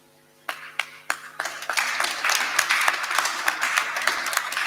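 An audience applauding: a few single claps about half a second in, swelling within a second or so into steady, loud clapping from many hands.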